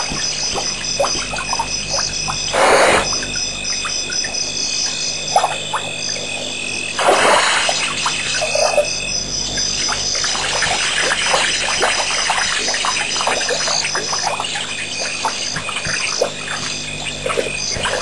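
African elephant drinking: twice, about three and seven seconds in, a rushing gush of water as it empties its trunk into its mouth. Between the gushes there is a busy chorus of short clicks and chirps with steady high tones.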